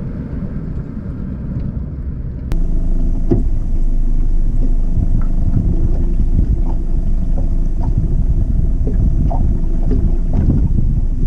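First, a vehicle's engine and tyre noise, heard from inside the cab while driving on a road. About two and a half seconds in it cuts to a fishing boat running across a choppy lake: a louder, steady rumble of the motor, wind and water, with scattered short knocks as the hull hits the waves.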